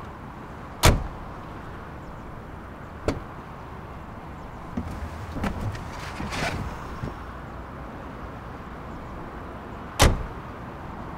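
Doors on a Volvo FL truck slamming shut: two loud slams, about a second in and near the end, with a lighter knock about three seconds in and some clicks and handling noises between them.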